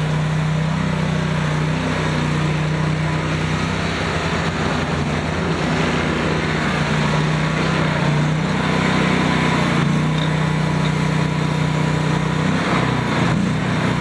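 Land Hero E 232DV mini skid steer's engine running steadily, its pitch dipping briefly near the end.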